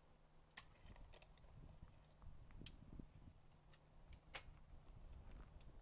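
Near silence, broken by three faint, sharp clicks spread a second or two apart.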